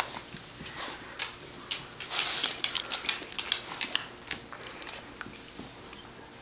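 A puppy sneezing: a short, breathy burst about two seconds in, amid many light clicks and rattles from the dog moving about.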